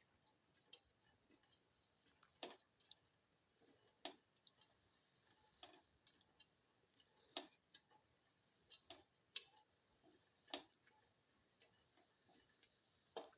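Chopped shallots sautéing in a pan with a little oil: faint, irregular crackles and clicks, with sharper ticks about every second and a half.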